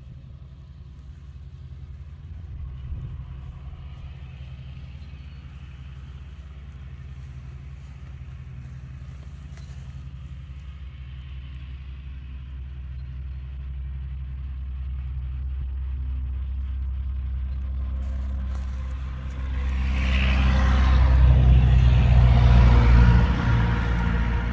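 A vehicle engine running steadily with a low hum, slowly getting louder and then much louder for a few seconds near the end before easing off.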